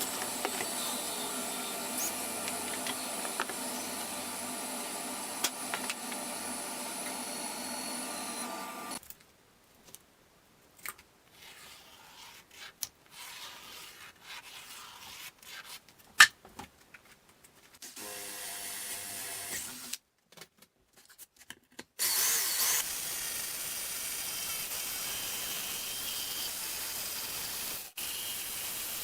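Woodworking power tools at work: an electric tool's motor running steadily for about nine seconds, then scattered clicks and knocks with one sharp loud click. After that comes a brief stretch of machine sound, then a louder hissing stretch with abrupt cuts between sections.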